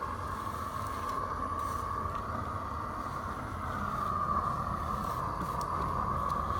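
Roofing torch burning with a steady rush, heating the trowel and bitumen sheet so the granules can be pressed in; slightly louder from about four seconds in.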